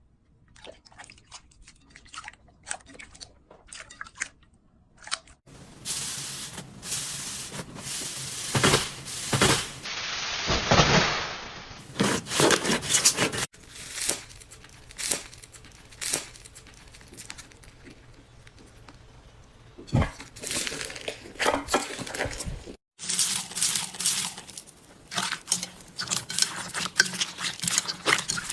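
Slime being squeezed, stretched and pressed by hand, giving dense crackling, popping and squishing noises that swell and fade with each squeeze. The texture changes abruptly several times as different slimes are worked.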